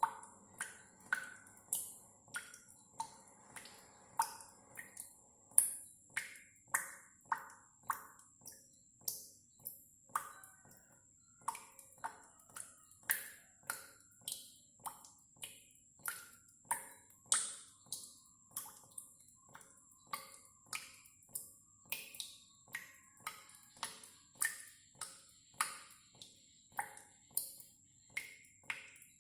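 Water dripping steadily, about two drops a second, each a short plink at a slightly different pitch and loudness.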